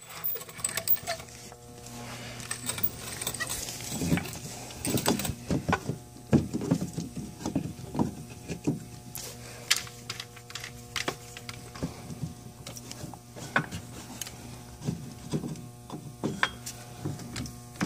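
Irregular clunks, clicks and scrapes of a floor jack being positioned under the car with a block of wood set for lifting, over a steady low hum.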